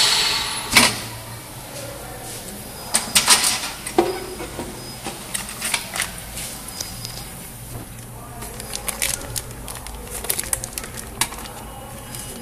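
Air hissing back into the chamber of a 260 chamber vacuum sealer after the seal, fading out within the first half-second. About a second in there is a clunk, followed by scattered small clicks and plastic crackling as the vacuum-packed bag of screws is handled, over a low steady hum.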